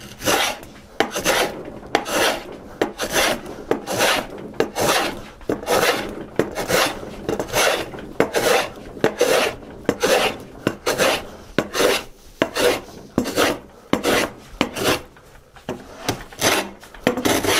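A #4 bench hand plane taking quick, heavy strokes across the grain of a white oak board, about two shaving strokes a second. It is hogging material off the face to bring it down toward a marking-gauge line.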